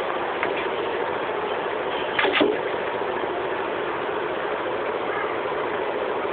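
A steady mechanical whirring noise, with a brief louder noise about two seconds in.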